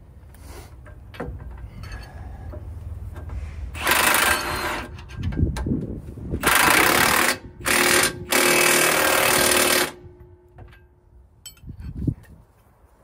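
Milwaukee M18 cordless 1/2-inch impact wrench hammering in four loud bursts, tightening bolts on a semi truck's torsion bar mount, with a steady motor whine under the hammering. Before it, only light clicks of handling.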